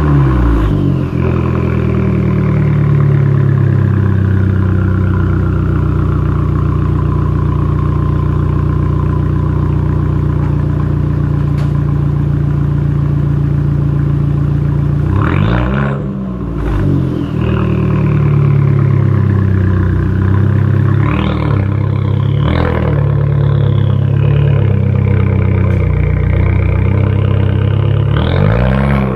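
A 2014 Fiat 500L's 1.4-litre turbocharged four-cylinder runs through a straight-piped exhaust, with the rear muffler and centre resonator removed. It idles steadily, with quick blips of the throttle about halfway through, twice around three-quarters in, and once at the very end.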